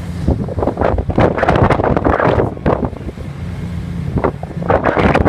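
Wind buffeting the iPad's microphone in irregular gusts, over a steady low drone from the car ferry's engines.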